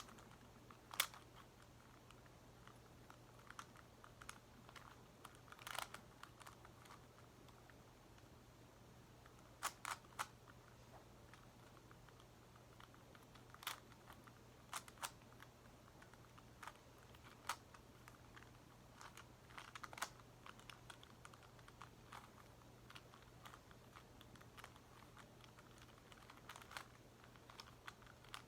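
Faint, scattered clicks and clacks of a Megaminx puzzle's plastic faces being turned, irregular with long gaps, over a steady low hum.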